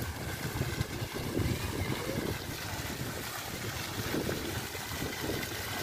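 Small splash-pad fountain jets splashing in a shallow pool, steady, with wind gusting on the microphone.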